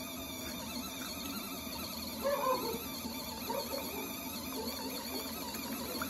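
Mini portable washing machine running its wash cycle: a steady motor hum with soapy water and clothes churning in the tub.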